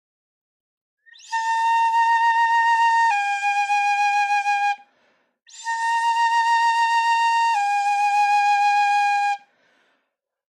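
Shinobue (Japanese transverse flute) played in its low octave: two long held phrases, each a steady note that steps down to a slightly lower one partway through. This is the beginner's exercise of note 6 followed by note 5.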